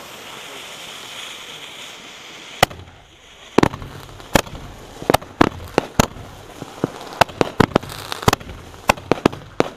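Fireworks going off close overhead: a steady hiss for the first two and a half seconds, then a rapid, irregular string of about twenty sharp bangs, some in quick pairs.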